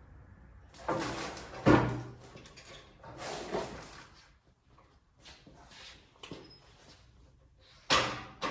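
Handling noises: several bouts of scraping and clattering with a sharp knock about a second and a half in.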